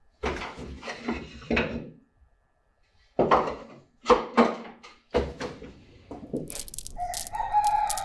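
Chickens and a rooster: a loud call, then several short clucks, then from about seven seconds in a long rooster crow held on one pitch before it falls away. Sharp clicks come in near the end.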